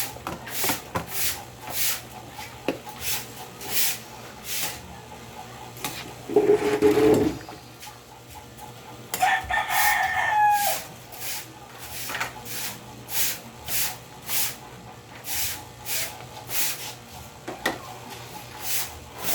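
A rooster crows near the middle: a loud lower call, then a longer pitched call that falls at the end. Underneath runs a steady rhythm of short scraping strokes, about two a second.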